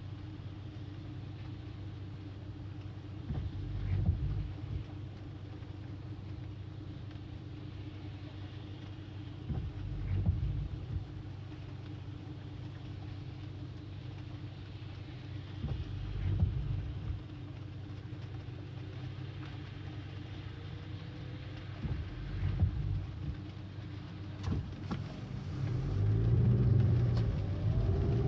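Car driving in the rain, heard from inside the cabin: a steady low road and engine rumble that swells briefly about every six seconds. Near the end the engine note rises and grows louder as the car speeds up.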